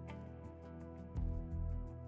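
Background music: sustained soft tones over light, evenly spaced ticking percussion, with a deep bass note swelling in a little past the first second.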